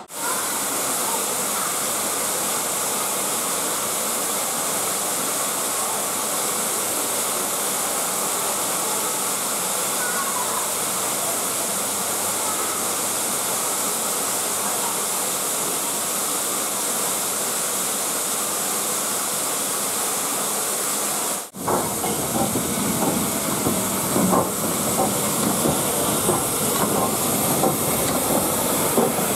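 LNER Class K1 2-6-0 steam locomotive standing with steam escaping in a steady, even hiss. After a sudden break about two-thirds through, the hiss goes on louder and rougher, with scattered small knocks over it.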